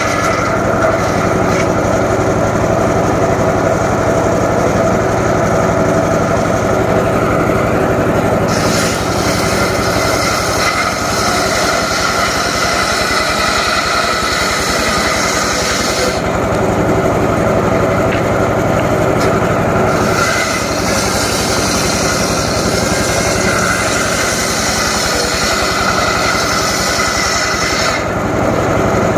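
Engine-driven homemade circular saw running steadily while its blade cuts johar wood. There are two long cuts, one starting about 9 seconds in and one about 20 seconds in, each lasting some seven or eight seconds, and the saw runs free between them.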